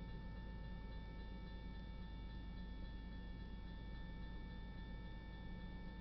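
Railroad crossing warning bell ringing steadily as the crossing signals warn of an approaching train, with a low rumble underneath.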